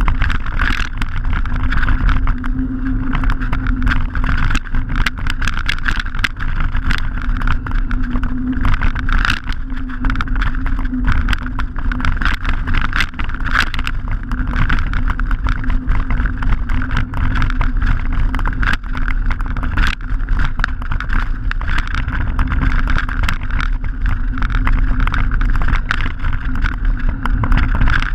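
Mountain bike rolling over a gravel track, heard from a handlebar-mounted camera: a steady rumble of knobbly tyres on loose stones with wind buffeting the microphone, and frequent small clicks and rattles from the bike and flicked-up gravel.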